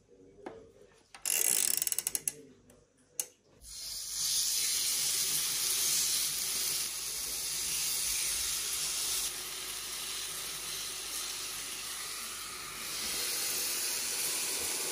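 Clicks and knocks from an electric grill being handled for the first few seconds, then a steady sizzling hiss as chicken fillet cooks on the grill.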